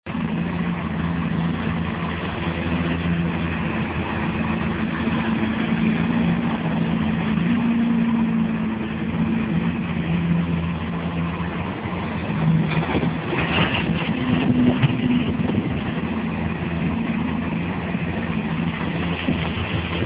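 A heavy construction machine's engine runs steadily, its pitch drifting up and down a little. About two-thirds of the way through there is a spell of metallic clattering.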